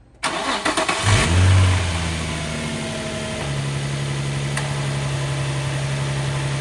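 Nissan 350Z's VQ35DE V6 cranked over by the starter for about a second, catching with a short flare of revs, then settling into a steady idle. No belt squeal is heard: the new serpentine belts have cured it.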